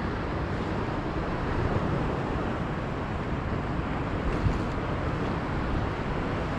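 Steady wind noise on the microphone with ocean water washing around a kayak.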